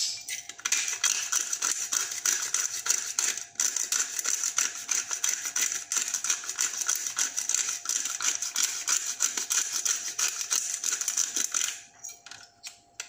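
Bottle-top pepper grinder being twisted to grind black peppercorns, making a rapid, dense clicking crackle. It stops briefly about three and a half seconds in and ends near the end.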